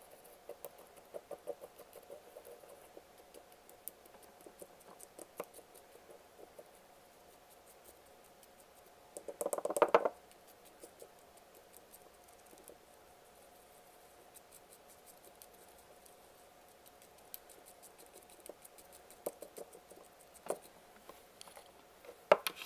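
Light ticking and scraping of a thin stick against the glass neck of a nail polish bottle as eyeshadow powder is pushed in, with a brief flurry of louder clicks about ten seconds in. A faint steady hum runs underneath.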